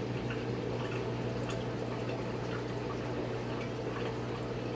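Aquarium water trickling and splashing steadily, with small drips and ticks, over a constant low hum from the running tank equipment.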